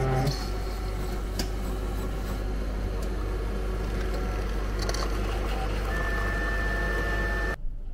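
Georgia cup-type coffee vending machine running as it brews a café latte, pouring foamed milk and then coffee into a paper cup: a steady motor hum with a few light clicks and a steady whine in the last seconds. It cuts off suddenly near the end.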